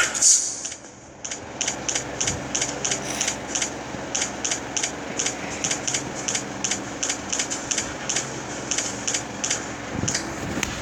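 Steady, regular clicking, about four clicks a second, over a faint hum.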